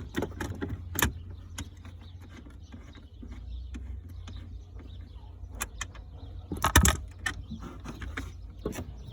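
Scattered clicks and metallic clinks of hand tools working on the car battery's terminal as it is disconnected, with a louder clatter about seven seconds in, over a low steady rumble.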